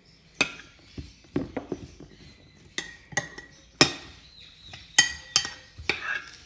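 Metal spoon stirring chopped vegetables in a glass bowl, knocking against the glass in a dozen or so irregular, sharp clinks that ring briefly.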